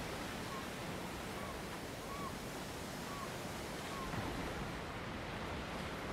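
Steady wash of sea surf mixed with wind noise. Five faint short chirps come through about once a second.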